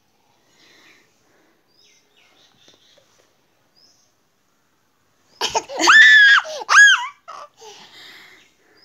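About five seconds in, a toddler lets out a high-pitched squealing laugh, its pitch sliding up and down for over a second, followed by softer giggles.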